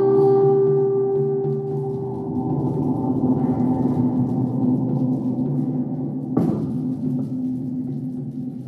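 Drone music: several sustained low tones held and layered together, slowly shifting. A single sharp strike comes about six and a half seconds in.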